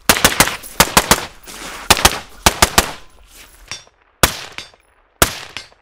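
Suppressed 5.56 carbine firing, with its Surefire SOCOM RC suppressor: a rapid string of shots over about three seconds, then two single shots about a second apart. The suppressed shots still carry the supersonic crack of the 5.56 bullet.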